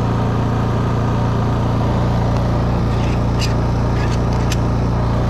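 Honda EU3200i fuel-injected inverter generator's single-cylinder engine running steadily under heavy load as a variac load bank is turned up toward its overload point of about 3,500 watts. A few light clicks in the second half.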